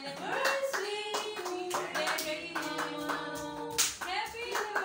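Several people clapping their hands along with singing voices that hold long notes.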